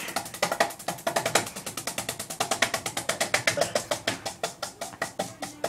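Ceiling fan blades striking a hand held up into the fan: a rapid run of sharp smacks, about ten a second, that spread out toward the end as the fan loses speed.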